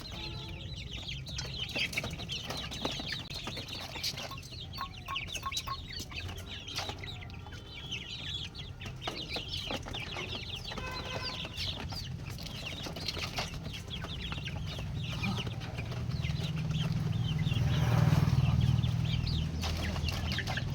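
Many chicks peeping continuously at feeding time, with a low rumble that swells near the end.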